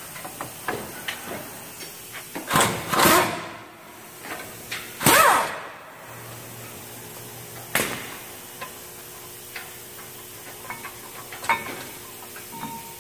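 Two short bursts of a powered wrench spinning out the 21 mm brake caliper bracket bolts, about two and a half and five seconds in. Then a sharp knock and light metal clicks as the bracket is worked off the rotor.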